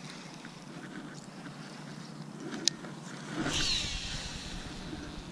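A cast with a KastKing Speed Demon Pro baitcasting reel. A sharp click comes a little over halfway through as the spool is freed. Then comes the swish of the rod and the whirr of line paying off the spinning spool, falling in pitch.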